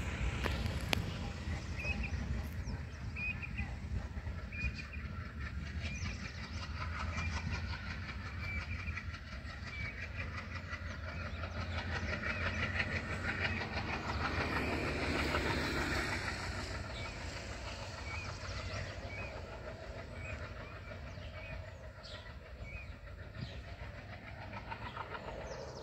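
Rumble and clatter of an express train's coaches on the rails as the diesel-hauled train accelerates away, fading slowly near the end. A short high chirp repeats about once a second over the rumble.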